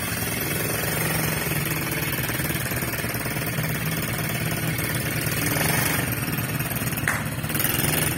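A 135 cc petrol ATV engine running steadily with a rapid putter as the quad moves along slowly.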